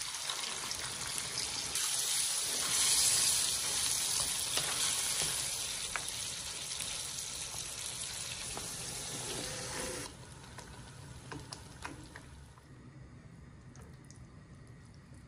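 Tomato passata sizzling as it hits seared pork and soffritto in a hot frying pan, a loud steady hiss while it is stirred with a wooden spoon. About ten seconds in the sizzle cuts off suddenly, leaving a quieter stretch with faint scrapes and taps of a spatula stirring the thick cooked ragù.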